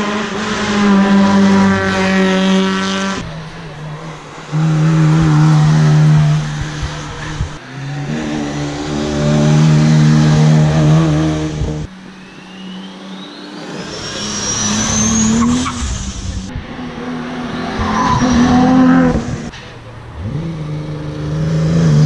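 Classic cars accelerating hard one after another, their engines revving up through the gears in several short runs. About two-thirds of the way in, a high whine rises steadily for a few seconds.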